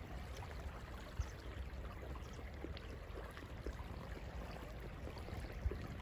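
Small waves lapping on a sandy shore, under a steady low rumble of wind on the microphone, with a couple of soft knocks about a second in and near the end.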